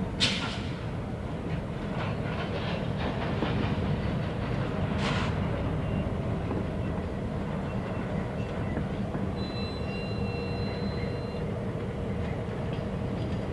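Canadian Pacific diesel locomotives moving through a rail yard: a steady diesel engine rumble and hum with rolling wheel noise. Short hissing bursts come just after the start and about five seconds in, and a faint high squeal sounds around ten seconds in.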